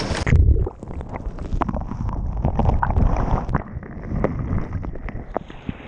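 Ocean wave breaking over a camera at the water's edge: a loud splash about half a second in, then muffled sloshing water with many small crackles and pops, heard with the microphone under water.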